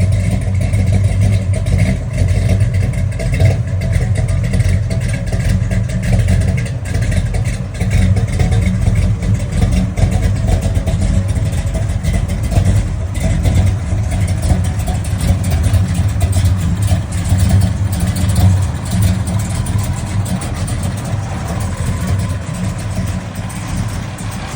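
Classic Dodge Charger engine running with a misfire, its low note steady but uneven.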